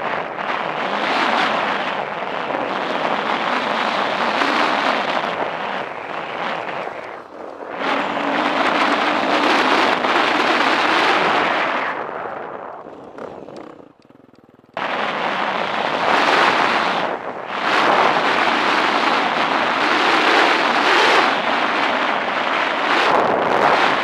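Wind rushing over a helmet camera's microphone, mixed with the running of a KTM 350 EXC four-stroke dirt bike on a trail. The noise fades about halfway through, nearly stops for a second or two, then cuts back in suddenly.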